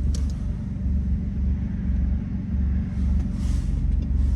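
A car engine idling, a steady low rumble, with a couple of light clicks at the start.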